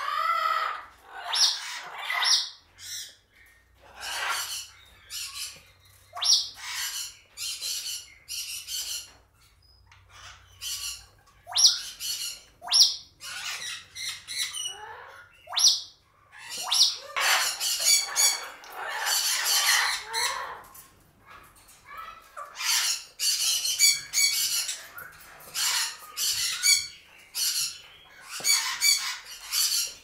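Congo African grey parrot tearing and chewing a cardboard cereal box with its beak: many short ripping and crunching noises in irregular clusters. The parrot also calls here and there, with a pitched call near the start.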